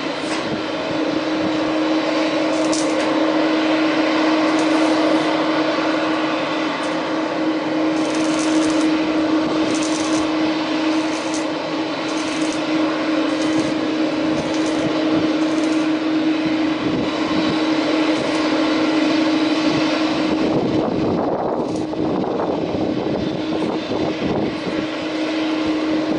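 Airbus A330 turbofan engines running at low power as the airliner taxis: a steady rushing sound with one constant held tone.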